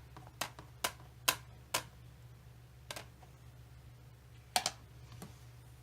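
Sharp taps and clicks of card-making tools and paper being handled on a tabletop: four evenly spaced about half a second apart, then a few scattered ones, over a low steady room hum.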